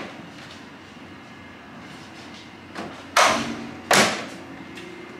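Two loud slams a little under a second apart, each dying away quickly.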